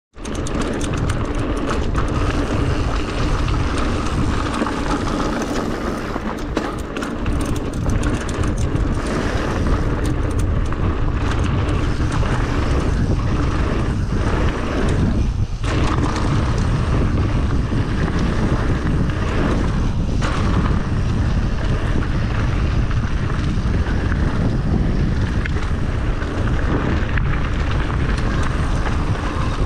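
Wind buffeting the microphone of a camera mounted on a mountain bike's handlebars as it rides fast down a dirt trail, mixed with tyre noise and the rattle of the bike over the ground. Steady and loud, with scattered knocks.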